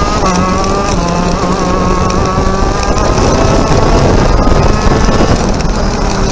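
TM Racing 125cc two-stroke KZ shifter kart engine at racing revs, heard onboard, its pitch shifting as the revs fall off and build again through the lap.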